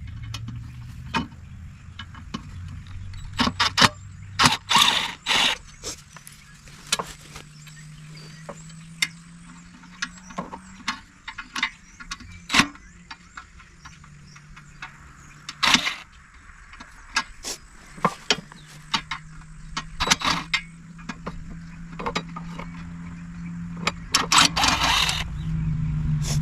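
Hand tools on a commercial floor scrubber's metal parts while bolts are worked loose: scattered clicks, knocks and short scraping bursts over a low steady hum.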